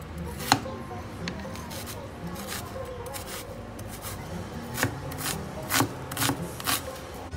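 Large kitchen knife slicing through a red onion and knocking on a wooden cutting board: a few scattered strokes at first, then quicker chopping in the last few seconds.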